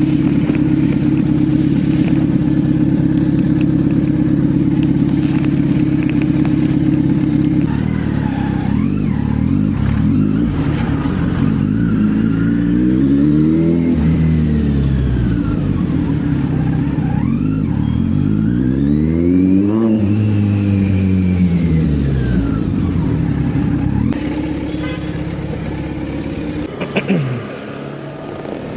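Kawasaki Z900's inline-four engine through an SC-Project exhaust, running at a steady note, then climbing and falling in pitch twice, about six seconds apart. It quietens near the end, with a short knock.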